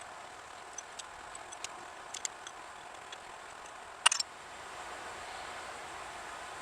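Small clicks and light knocks of small parts being handled at a workbench, with a louder clatter of a few quick clicks about four seconds in, over a steady background hiss.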